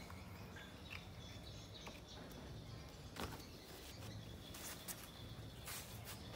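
Faint outdoor ambience with birds chirping, broken by a few sharp clicks or knocks, the loudest a little past three seconds in and again just before five seconds.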